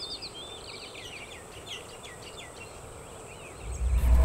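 Birds chirping in short whistled calls over a steady high insect whine, a rural outdoor ambience. Near the end a deep low rumble swells in and becomes the loudest sound.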